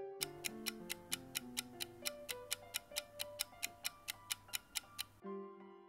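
Clock-like ticking of a quiz countdown timer sound effect, fast and even at about four to five ticks a second over background music, stopping about five seconds in as the countdown runs out.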